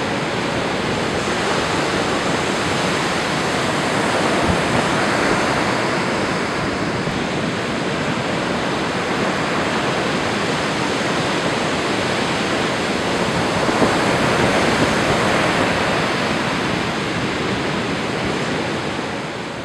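Lake Superior surf breaking on a rocky sandstone shore, mixed with a small waterfall splashing off a rock ledge: a steady, loud rush of water that swells slightly a few times and fades near the end.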